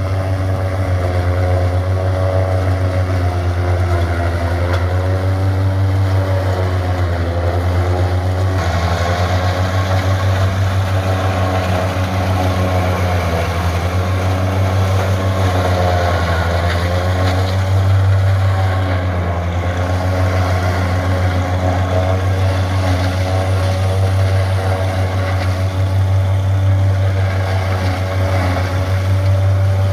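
Valmet farm tractor's diesel engine running steadily under load, driving a PTO forage chopper that grinds dry corn stalks into animal feed. The engine note wavers a little as the stalks are fed in, and from about a third of the way in a rougher grinding noise rides over it.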